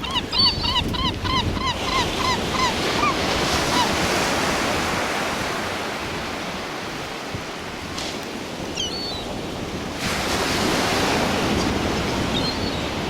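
A gull calling in a quick series of short yelping notes, about four a second, fading out after about four seconds, with two more brief calls later. Underneath, surf washes steadily on the shore, swelling about ten seconds in, with wind on the microphone.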